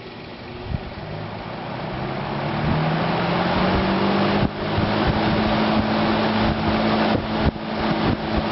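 1957 Dominion 20-inch box fan's motor spinning up on high speed. Its hum rises in pitch and the rush of air grows louder over the first four seconds, then it runs steadily. There are a few brief knocks.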